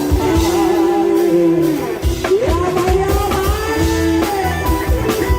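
Loud live band music from a Thai rot hae sound-truck band: an amplified guitar-like lead melody with sliding, bent notes over a steady drum beat.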